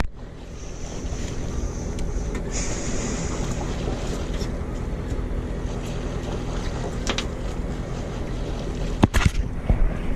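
A boat's engine running steadily under wind and water noise. A few sharp knocks come about nine seconds in.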